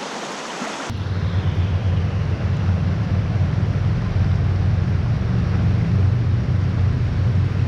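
Rushing mountain stream. About a second in the sound changes abruptly: the high hiss drops away and a steady low rumble takes over.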